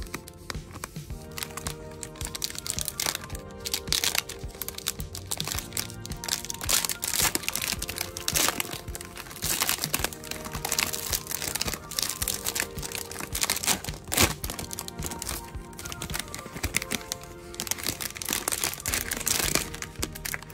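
Clear plastic wrapper of a Peeps marshmallow package crinkling and crackling as it is peeled open by hand, in many short sharp crackles. Background music plays under it.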